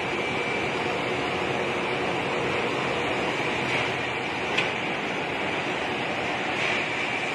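Steady mechanical din of a hot rolling mill's rolling stands and conveyors running, with a faint high whine over it. A single sharp knock about four and a half seconds in.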